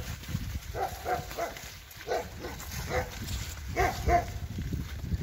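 Small dog barking repeatedly, short barks coming in twos and threes. Beneath it runs a steady low rumble from the bicycle riding through slush.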